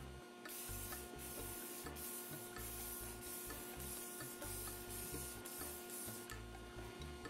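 Aerosol spray paint can hissing in short repeated bursts, about two a second with brief gaps, as it is swept back and forth over a plastic model car body, over a steady hum.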